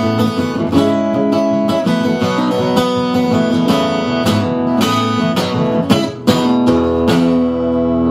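Acoustic guitar strumming the closing bars of a song, ending about six seconds in on a final chord left ringing.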